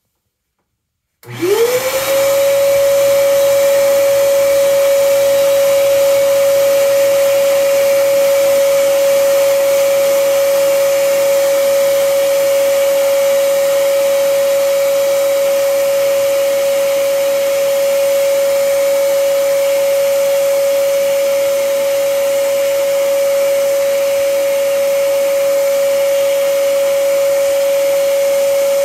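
Vacuum cleaner motor switching on about a second in, winding up quickly to a steady high whine and then running at a constant pitch, with air rushing through the hose.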